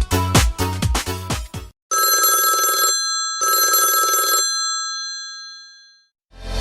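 Samsung GT-S5520 phone ringtones. A beat-driven electronic tune stops about a second and a half in. Then a telephone-bell-style ringtone rings twice, each ring about a second long, and the second ring fades away.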